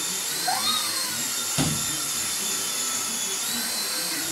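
Small propeller motor of a light-up flying ball toy whining steadily as it hovers, its pitch shifting slightly now and then. A single short knock about a second and a half in.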